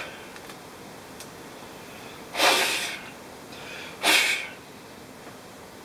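Two short puffs of breath blown across a laptop motherboard to clear dust, about two and four seconds in.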